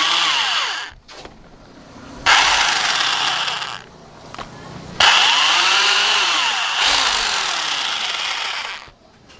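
A power tool working in three bursts: a hissing grind whose pitch rises and falls within each burst, with short pauses between them.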